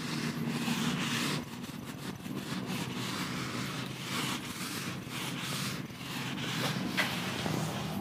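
Hand-held eraser wiping marker off a whiteboard in repeated back-and-forth rubbing strokes, with a faint steady low hum underneath and a short tick about seven seconds in.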